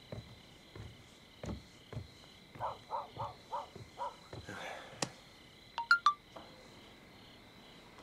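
Night ambience with a steady high insect drone. Over it come soft thumps like footsteps on wooden boards, then a quick run of five croak-like calls. About six seconds in, two or three sharp, high chirps are the loudest sounds.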